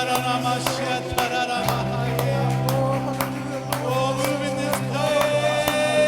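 Live praise-and-worship band music with singing: a steady drum beat about three strokes a second under held instrument and vocal notes, with a bass line coming in about a second and a half in.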